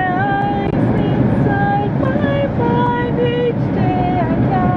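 A woman singing long, held wordless notes that slide between pitches, over the steady road rumble inside a moving car.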